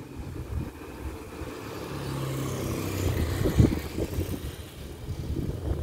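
Motor scooter approaching and passing close by, its engine getting louder to a peak about three and a half seconds in and then falling away.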